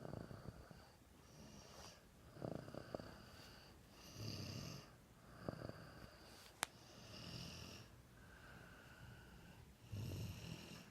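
A sleeping person snoring, one rasping snore every one and a half to two seconds. There is a single sharp click about six and a half seconds in.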